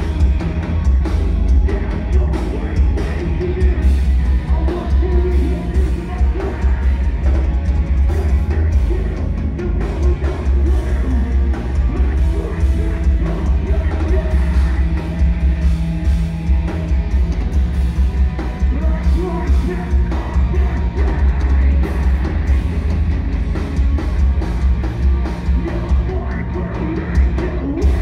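Live post-hardcore band playing at full volume: distorted electric guitars, bass and a drum kit, with the singer singing and yelling into the microphone. A deep bass boom dominates throughout.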